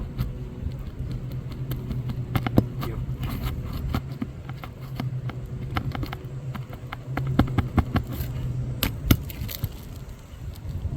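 A hand tool prying at asphalt shingles and a roofing nail: scattered scrapes and clicks, with a sharper knock about two and a half seconds in and another near the end. A steady low hum runs underneath.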